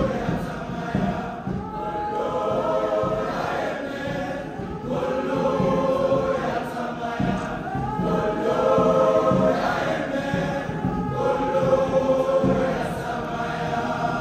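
A choir singing, many voices together in long held phrases that swell and fall.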